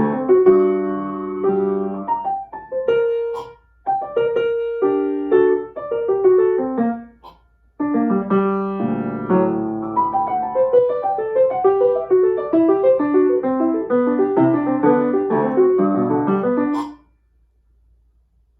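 Piano music played in quick runs of notes, with two short breaks, stopping about a second and a half before the end.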